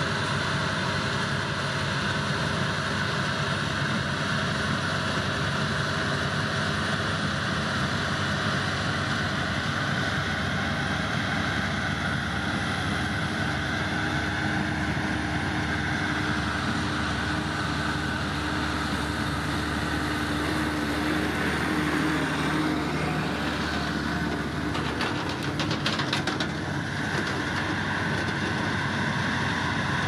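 Massey Ferguson farm tractors' diesel engines running steadily, with a brief rattling clatter a little after the middle.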